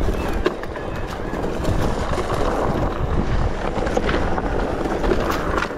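Mountain bike descending a trail: wind rushing over the camera microphone with a steady rumble, tyres running over the ground, and frequent clicks and knocks of the bike rattling.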